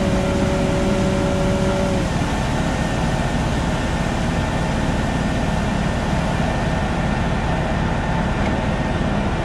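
John Deere 9520RX tractor running steadily under load, a continuous engine and drivetrain drone, with a steady whine over it that stops about two seconds in.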